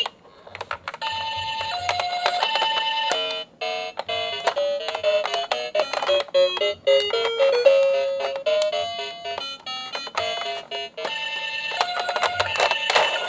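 Toy ambulance's electronic two-tone 'pee-po' siren, a high and a low note alternating. A short electronic tune breaks in for several seconds, then the two-tone siren comes back near the end.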